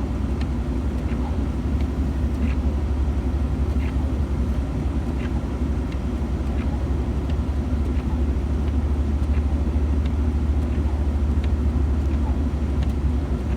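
Steady low rumble of road and engine noise inside a moving vehicle's cabin, with faint light ticks now and then.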